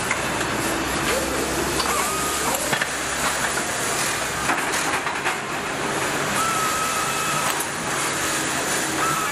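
Car assembly line noise: a steady hiss of running machinery, with a few scattered clicks and short whines that rise and then hold, twice and again near the end.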